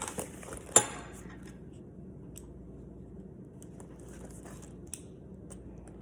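Hand-handling noise while unpacking an item: a sharp click about a second in, then faint rustling and light taps.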